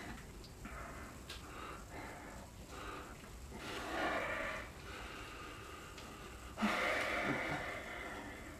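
A man breathing heavily and audibly through his nose, a run of noisy breaths and sighs, the loudest one starting near seven seconds in.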